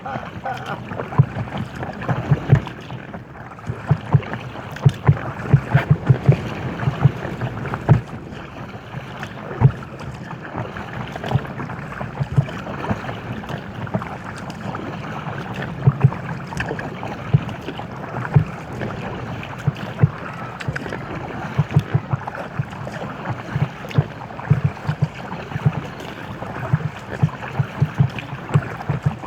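Water on an inflatable kayak: many short, irregular low knocks of small waves slapping the hull, over a steady wash of water.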